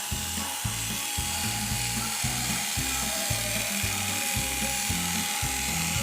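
Electric pet clippers running steadily and rasping as they shave through thick matted dreadlocks of dog fur, a continuous buzzing hiss with a thin steady whine. Background music with a steady bass beat underneath.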